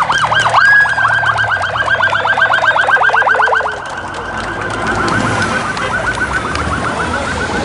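Police escort siren sweeping up and down, speeding up about a second in to a fast warble of roughly ten sweeps a second. A little under four seconds in it drops in loudness and carries on more faintly.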